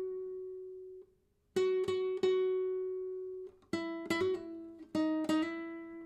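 Nylon-string classical guitar playing a slow single-note solo phrase. A high note on the second string at the seventh fret rings out and is plucked three times in quick succession. Lower notes follow near the end, with quick hammer-ons and pull-offs between frets.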